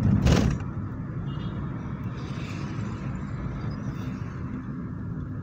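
Steady road and engine noise of a moving vehicle, heard from inside it, with a brief loud rush of noise in the first half-second.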